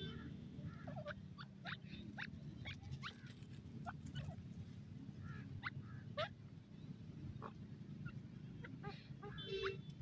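Grey francolin (teetar) calling softly: short, high, thin chirps at irregular intervals over a low steady rumble. Near the end a brief, harsher, buzzy call.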